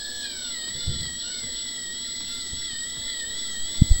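Small electric driver handpiece whining steadily as it turns an orthodontic anchor screw slowly into the jawbone, its pitch dipping briefly about half a second in. A few sharp low thumps come near the end.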